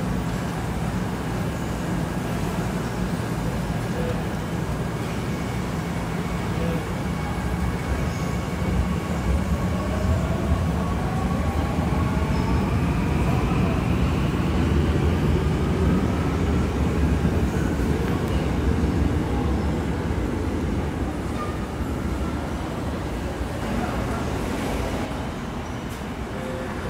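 Seoul Subway Line 9 electric train running into an underground platform behind the screen doors. A low rumble builds while an electric motor whine glides upward in pitch, then the rumble fades to a quieter station hum near the end.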